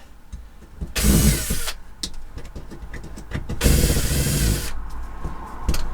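Two loud bursts of tool-on-timber work noise, each about a second long, with scattered clicks and knocks between: old screws and nails being pulled out of the camper's wall timber.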